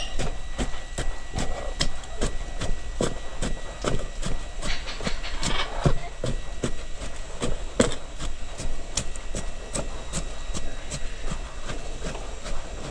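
Shovel chopping and scraping through a mix of sawdust, used tea and dry, clumpy cow manure: a rapid, uneven run of knocks, about three a second.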